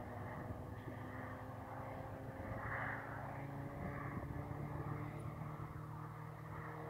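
Propeller aeroplane engine droning steadily, its pitch falling slightly.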